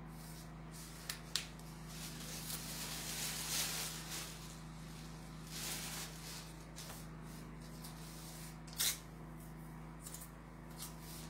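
Rustling of lace and cloth being handled, with a few light knocks, the loudest about nine seconds in, over a steady low hum.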